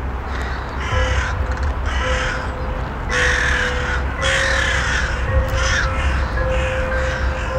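A flock of crows cawing over and over, harsh calls about one or two a second, over a low steady drone.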